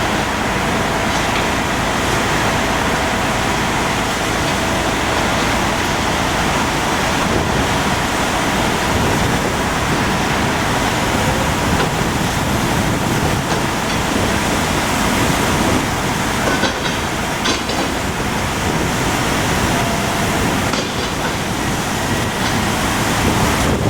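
Steady, loud noise of engines and traffic with a faint steady whine, with no single event standing out.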